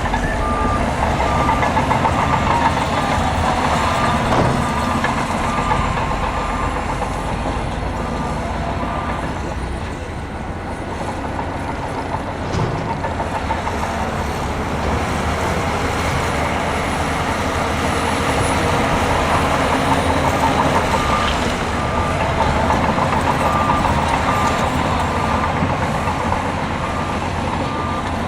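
Diesel engines of heavy earthmoving machinery running under load, with a reversing alarm beeping steadily for the first third and again near the end.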